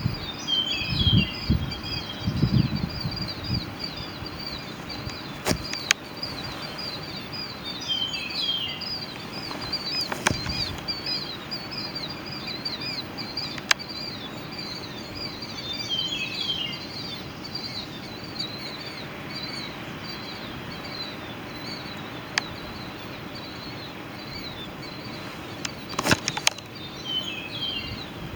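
Birds chirping continuously in quick high notes, with a short phrase of falling notes recurring about every eight seconds. A few sharp knocks break in, and there are low thumps in the first few seconds.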